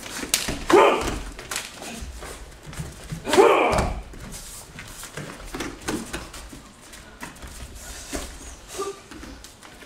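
Two loud shouts, about a second in and again about three and a half seconds in, as Kenpo strikes are thrown; between them come scattered slaps and thuds of strikes landing and feet on the training mat.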